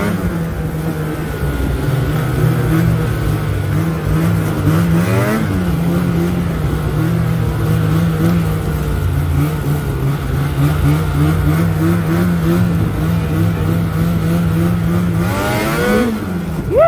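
Snowmobile engine running at a steady speed, heard from the rider's seat, with a brief rise and fall in revs about five seconds in. Near the end the revs climb and then drop sharply.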